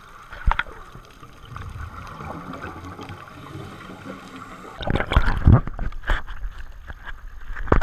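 Muffled underwater sound with a steady hum. From about five seconds in, loud irregular splashing and sloshing of water against the camera housing as it rides at the surface.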